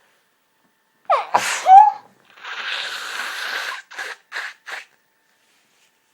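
A single hay-fever sneeze: a sharp rising in-breath about a second in, then the loud sneeze itself, followed by a long breathy exhale and three short quick breaths.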